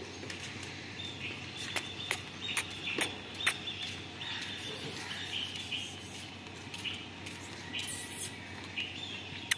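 Small birds chirping over and over, with a run of sharp clicks or ticks from about two to three and a half seconds in.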